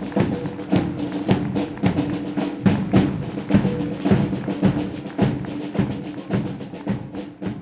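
School marching drum corps playing: snare and bass drums beating a steady marching cadence, with a low steady tone sounding beneath the drumming.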